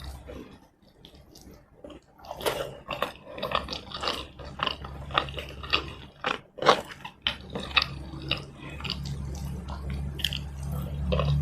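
Close-miked chewing and wet mouth smacks of someone eating rice and chicken. It is quiet for about two seconds, then comes a dense run of short, sharp smacks and clicks, with a low steady hum coming in near the end.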